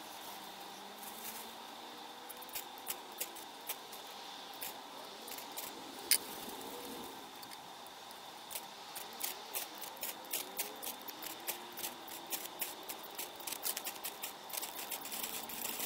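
Dry sticky jack (cleavers) tinder being pulled apart and fluffed by hand: light crackling and rustling with scattered small clicks, growing busier in the second half. Near the end, a fire steel is struck against it.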